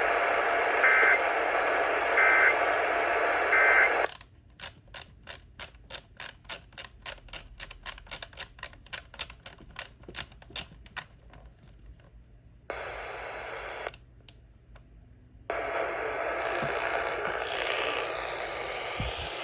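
Radio hiss carrying three short data bursts about a second apart: the EAS end-of-message code closing the flash flood warning. About four seconds in, the hiss cuts off and gives way to a run of sharp clicks, about three a second, which die out several seconds later. The hiss comes back briefly, then again for the last few seconds.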